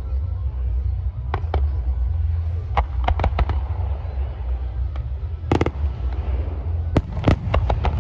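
Fireworks display: a steady low rumble of bursting shells, with clusters of sharp crackling pops about three seconds in and again near the end. The loudest crack comes a little past halfway.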